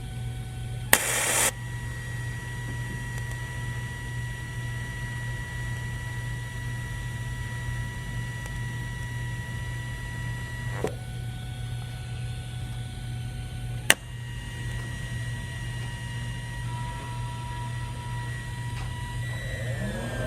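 Steady low electrical hum of workshop equipment, with a short burst of hiss about a second in and two sharp clicks later on.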